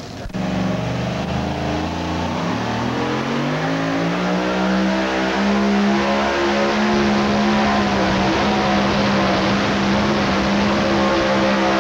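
Supercharged two-wheel-drive pulling truck's engine at full throttle, hauling the weight-transfer sled; it cuts in suddenly just after the start, its pitch climbs over the first five seconds or so, then holds high and steady.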